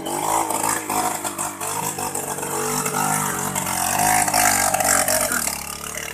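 A vehicle engine revving up and down under strain, with clattering and scraping over rough ground.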